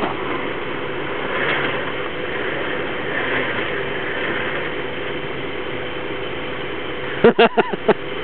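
Jeep Wrangler winch drum free-spooling with a steady mechanical whirr as the winch line is pulled out by hand, over the engine idling. Near the end, a few short, loud pitched sounds break in.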